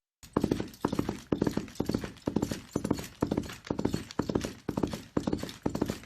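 A horse galloping: its hooves strike in quick groups of three or four, about two strides a second, in a steady rhythm. The sound cuts out for a split second right at the start.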